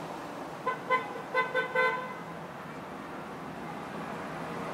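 A horn sounding a quick run of about six short toots at one steady pitch, all within just over a second, over a steady background hiss.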